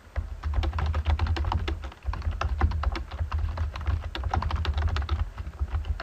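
Fast typing on a computer keyboard: a rapid run of key clicks with a short break about two seconds in.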